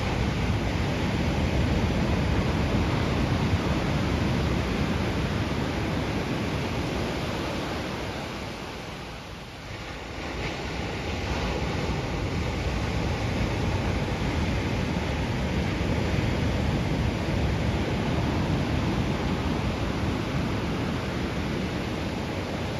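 Ocean surf washing ashore, heard as a steady rush mixed with wind noise on the microphone, easing for a moment about nine seconds in.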